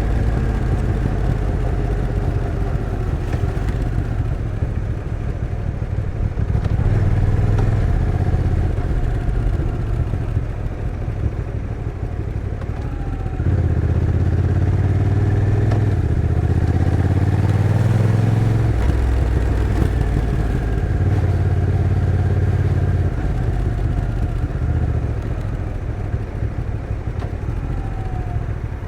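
Honda NT1100's 1,084 cc parallel-twin engine running while riding, its note rising and easing with the throttle, louder for a stretch about halfway through.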